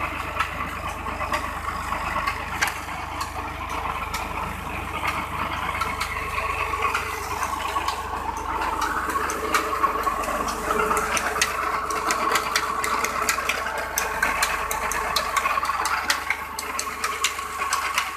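Fiat 480 tractor's diesel engine running steadily while driving a tube-well pump through its PTO shaft, with a fast rattling clatter of knocks over the engine note that grows busier in the second half.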